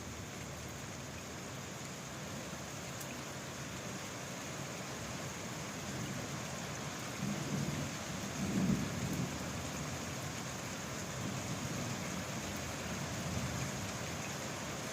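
Steady rain falling, with a low roll of thunder that swells a little past halfway, rumbling loudest briefly, then dying back to a softer low rumble under the rain.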